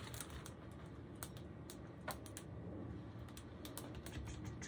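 Faint, scattered light clicks and taps as fingers touch and shift on the plastic film covering a diamond painting canvas. One click about two seconds in is a little louder.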